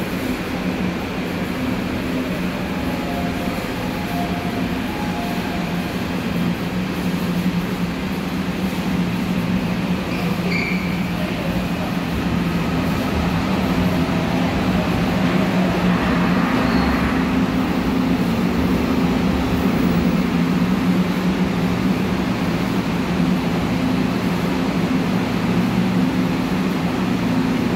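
A Seoul Subway Line 7 train pulls into the station behind the platform screen doors and comes to a stop, with a steady low electrical hum that grows louder as it draws alongside. There is a short high squeal about ten seconds in and a brief hiss a few seconds later.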